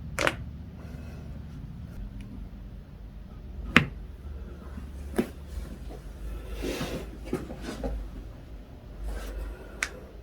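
Four sharp pops of spinal joints cracking under chiropractic manipulation, the loudest about four seconds in. A soft rustling comes between the pops, a little past the middle.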